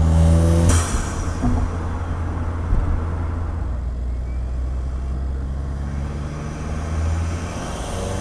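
2015 Ford Fiesta ST's turbocharged 1.6-litre four-cylinder on the move. Under a second in, the strong engine note breaks off with a short whoosh and drops. The engine then runs at a steady lower drone, rising slightly near the end.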